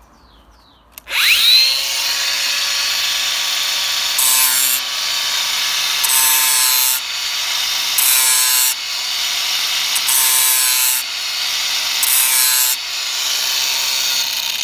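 Angle grinder switched on about a second in, its whine rising as the disc spins up, then running steadily while it grinds the bevel of a steel rotary lawn mower blade to sharpen it, with about five harsher stretches of a second or so as the disc bites the edge, and winding down near the end.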